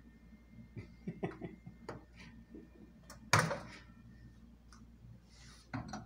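Microwave oven door being opened: a few light clicks and knocks of handling, then one loud sharp clack about three seconds in, and another knock near the end.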